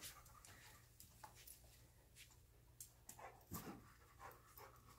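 Near silence, with a few faint, short sounds of a dog breathing and sniffing as it works a scent search, the clearest about three and a half seconds in.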